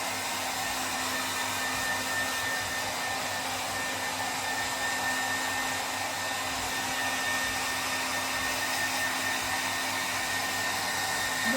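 Hair dryer running steadily while drying a German Shepherd's coat: an even rush of air with a steady high whine and a low hum.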